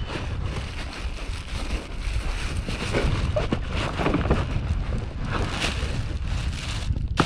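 Wind buffeting the microphone, with scattered rustles and light knocks from handling gear in an inflatable boat.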